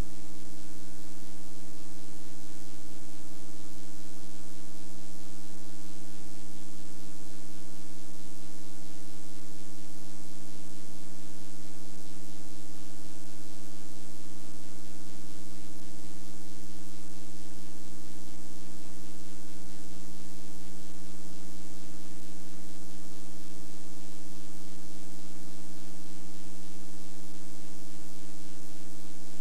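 Steady electrical hum with hiss, one unchanging buzzing tone with overtones: an audio fault in the recording that covers the soundtrack.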